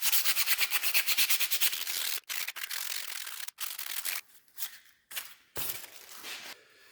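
Rapid rubbing strokes of an abrasive being worked back and forth over the steel knuckle duster during final finishing, about ten strokes a second, breaking into shorter scattered rubs after about two seconds and fading near the end.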